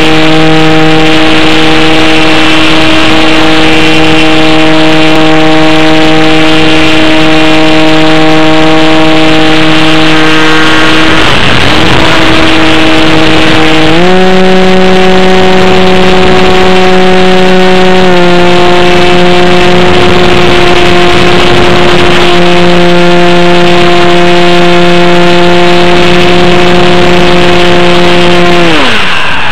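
RC airplane's motor and propeller heard at very close range, running at a steady high pitch over a steady hiss. The pitch wavers briefly about eleven seconds in, steps up at about fourteen seconds, and falls away sharply near the end.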